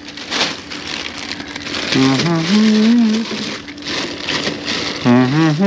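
Plastic snack wrappers crinkling and rustling as a bag is rummaged through, with two drawn-out wordless voice sounds from a man, about two seconds in and near the end.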